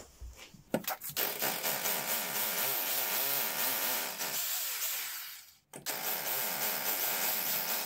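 SDS hammer drill boring pilot holes into a concrete floor, running in two goes with a brief stop about five and a half seconds in. A few knocks come just before the drill starts.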